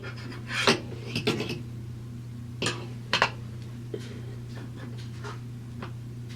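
Scattered light metallic clinks and knocks from hands handling the metal parts of a gas water heater around its pilot access opening, several close together in the first few seconds and sparser after. A steady low hum runs underneath.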